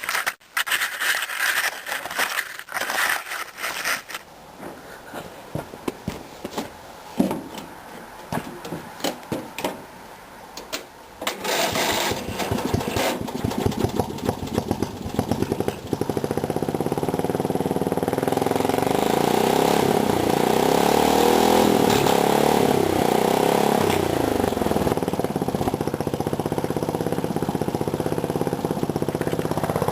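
Racing lawnmower's small engine being started: irregular sputtering and knocks at first, then it catches about twelve seconds in and settles into a steady run, its speed rising and falling a little. It runs well from a cold start.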